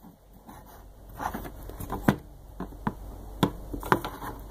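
Fingers handling a Sanguinololu 3D-printer control board fitted with small aluminium heatsinks: a handful of sharp clicks and taps, the sharpest about two seconds in and shortly before the end.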